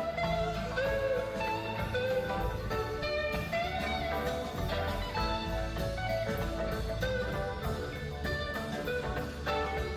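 Background music with guitar, bass and drums, in a bluesy style.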